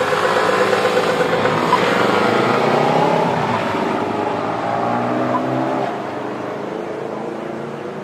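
A motor vehicle's engine passing close by, its pitch gliding upward through the middle, then dropping in loudness about six seconds in.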